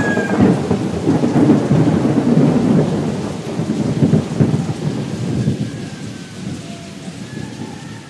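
Deep, crackling rumble like rolling thunder, with a rain-like hiss over it, loud at first and fading away over the last few seconds.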